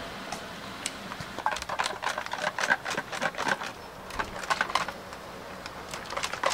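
A steel ball rattling inside a tall container of wood stain as it is shaken to mix two colours: rapid, irregular clicks in clusters, starting about a second in and easing off near five seconds.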